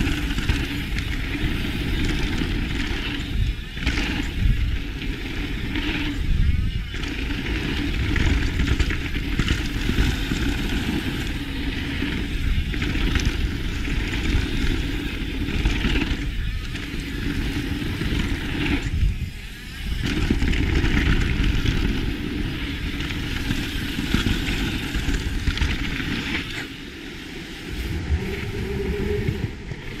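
Mountain bike ridden fast down a dry, hard-packed dirt jump trail: tyres rumbling over the dirt and wind rushing over the camera microphone, with a few brief drops in the noise.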